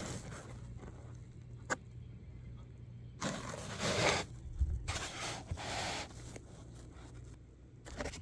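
Handling noises: a click, then two rustling scrapes of about a second each near the middle, over a steady low hum from the switched-on guitar amp.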